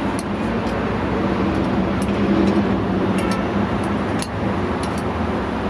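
Metal tongs clicking lightly against a steel egg-bread mold as the loaves are lifted out, several separate clicks over a steady low hum.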